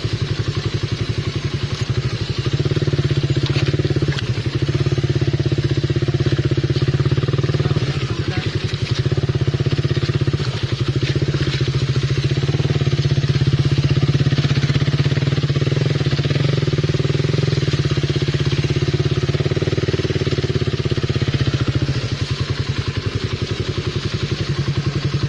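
Motorcycle engine running steadily under way, picking up a little a few seconds in and easing back near the end.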